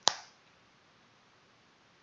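A single sharp computer mouse click right at the start, then only faint room hiss.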